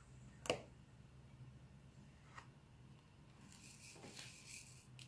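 Quiet handling sounds of a diamond-painting pen and drill tray on the canvas. There is one sharp click about half a second in and a lighter click later, then a soft rustle as the tray of resin drills is lifted, all over a low steady hum.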